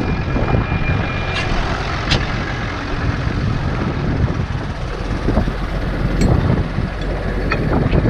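Tractor engine running steadily while the round baler is stopped, heard from outside the cab. A thin high beep sounds for about the first second and a half, and a few sharp clicks and knocks come through.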